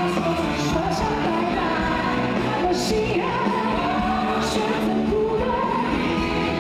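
Live pop-rock song sung by two male vocalists and a female singer over a full band, with occasional cymbal splashes.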